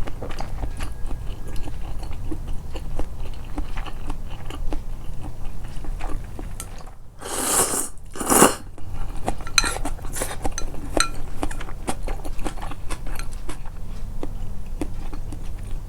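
Close-miked chewing and crunching of food, a steady run of small mouth clicks and bites. About seven and eight seconds in there are two short, loud hissing rushes of noise.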